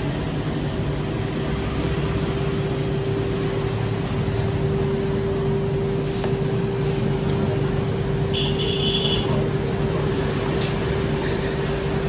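Steady street ambience: low traffic rumble under a constant mechanical hum, with a brief high beep about eight and a half seconds in.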